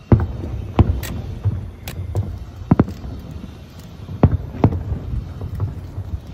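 Distant aerial firework shells bursting: several sharp bangs at irregular intervals, the loudest just after the start, over a low rumble.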